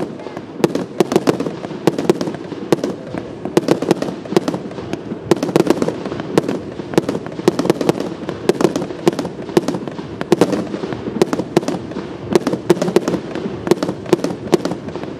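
Aerial fireworks fired in quick succession from one spot: an unbroken, irregular barrage of sharp bangs and pops, several a second.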